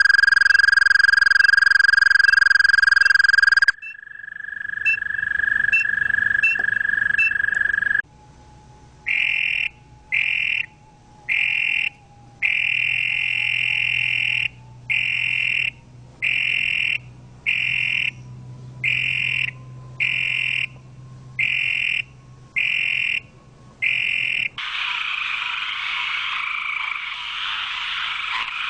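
Toads and frogs calling in a run of different recordings. First comes a long, steady, high-pitched trill that changes to a second trill about 4 s in. Around 8 s in starts a series of short repeated calls, about one a second, one of them longer. Near the end these give way to a dense, noisy chorus.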